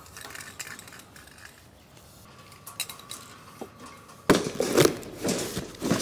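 Cardboard shipping box being handled to get at wire cage panels: rustling and scraping of cardboard and plastic wrap, starting suddenly about four seconds in after a few faint clicks.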